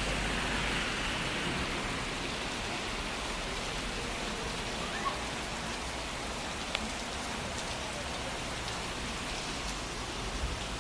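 Heavy rain pouring down in a steady hiss, with two brief ticks of drops striking something around the middle.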